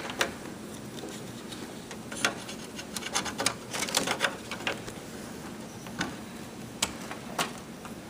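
Irregular light clicks and taps as a drive data cable is pressed into the plastic cable holder of a desktop computer case, thickest in the middle with a few single clicks later on.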